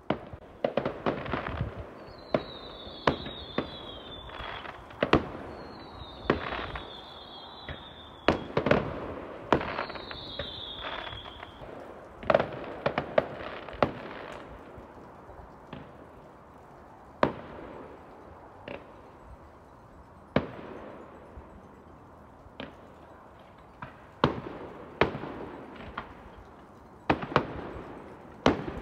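Fireworks bursting at a distance: a run of sharp bangs, many in the first half and more spaced out later, some followed by a short echo. Three times in the first dozen seconds a high whistle sounds and drops slightly in pitch.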